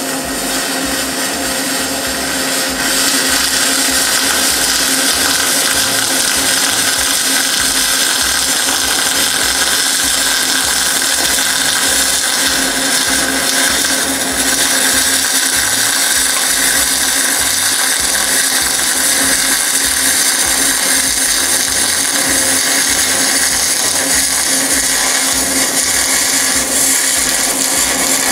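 MIG arc from a spool gun welding quarter-inch aluminum plate under pure argon, burning continuously as one long steady bead with a low hum under the arc noise.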